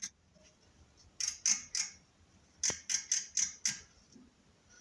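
Sharp metallic clicks from a hand measuring tool being set on a turned steel bar: one click, then a group of three, then about a second later a quicker run of five.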